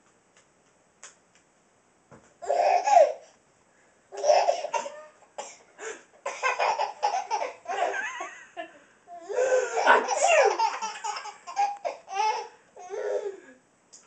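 A baby laughing hysterically in repeated bouts, with a short loud outburst about two and a half seconds in and near-continuous laughing from about four seconds on.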